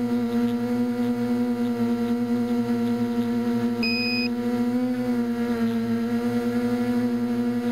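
Small electric multirotor's motors and propellers humming steadily, heard from the onboard camera. The pitch shifts and rises a little about five seconds in as the craft climbs. A short high beep sounds about four seconds in.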